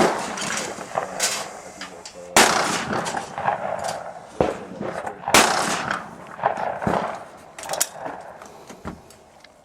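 Shotgun fired twice at a flushed bird, about three seconds apart, each report trailing off over a second, with a few smaller sharp clicks between.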